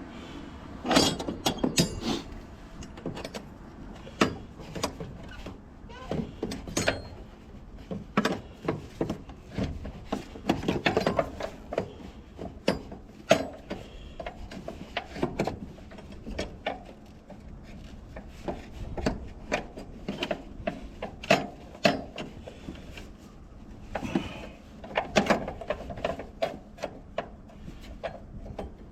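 Irregular clicks, knocks and clatter of hand tools and metal parts being handled, some in quick runs, as work goes on during a car battery replacement.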